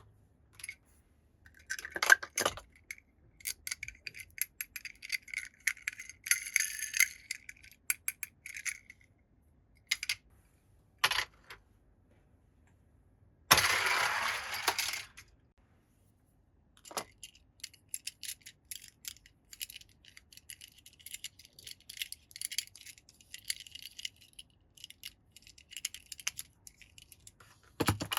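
Toy cars clicking and rattling as they are handled, with many small hard taps and clatters and a brief scraping rustle about halfway through.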